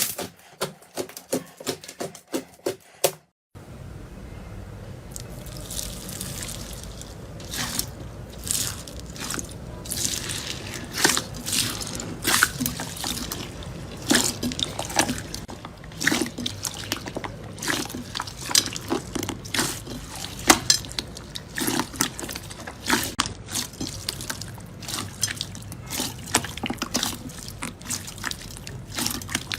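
Slime being squished and worked by hand, with wet, sticky pops and clicks. For the first three seconds or so the clicks are sharp and quick. After a brief break they come irregularly over a steady low hiss.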